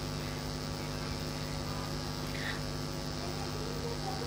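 Steady low electrical mains hum with a stack of evenly spaced overtones, unchanging throughout.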